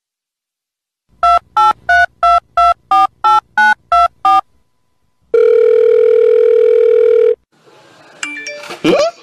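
Telephone keypad tones as about ten digits are dialled in quick succession, then a steady ringing tone for about two seconds. Near the end comes a brief sound with quick pitch glides.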